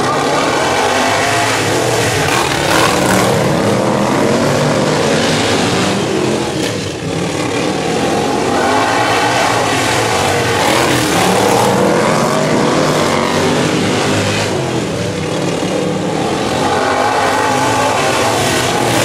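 Several racing riding lawn mowers running flat out on a dirt oval, their engines swelling louder and fading as the pack comes round and passes, with a brief lull about seven seconds in.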